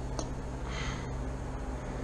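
A small plastic squeeze bottle of two-part epoxy hardener being squeezed: a light click and a short soft hiss of the squirt, over a steady low background hum.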